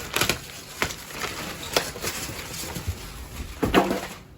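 Irregular knocks, taps and rustles of a new washing machine being unpacked from its packaging, a handful of sharper knocks scattered through, the loudest near the end.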